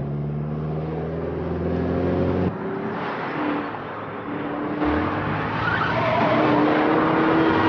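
Car engines running hard at speed during a chase, with tyres skidding and squealing in the last couple of seconds.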